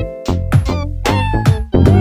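Background music with a beat and a deep bass line.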